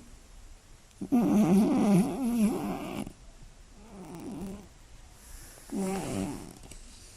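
Scottish Fold cat snoring loudly in her sleep: three wavering, pitched snoring breaths, a loud two-second one about a second in, then two fainter ones.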